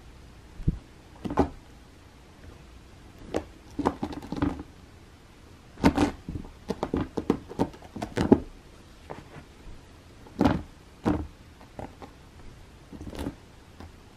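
A cat's claws and paws scratching and batting on a carpet-covered scratching ramp while it plays with a feather boa toy: short, irregular scratches in quick clusters, the busiest run near the middle.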